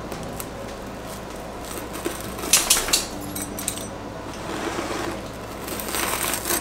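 Rolling pizza-cutter wheel crunching through a baked pizza's crust onto a wooden cutting board, in two louder passes: one about two and a half seconds in and one near the end.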